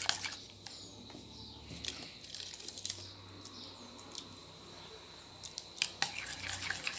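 Faint scraping and a few sharp clicks of a spoon against a glass bowl of thick cream mixture being stirred, over a low steady hum.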